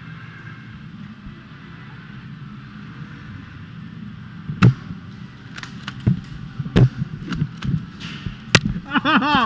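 Airsoft gunfire and BB hits: after a few seconds of steady outdoor background noise, a run of sharp cracks and knocks comes at irregular intervals, seven or so. A voice rises near the end.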